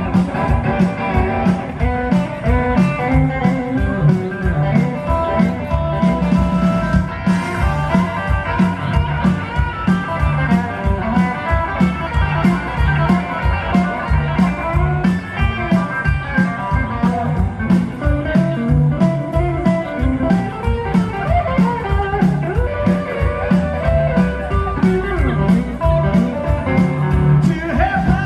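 Live rockabilly band playing an instrumental passage: hollow-body electric guitar picking a lead line over a steady drum beat and upright bass.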